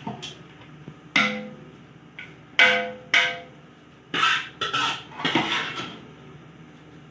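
A metal spoon knocking against a steel cooking pot while rice is spread over a biryani layer: three sharp ringing clinks in the first few seconds, then a quicker run of knocks and scrapes.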